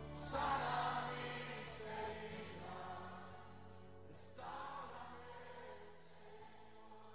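Christian worship song at its close: voices singing over sustained chords, the music fading out.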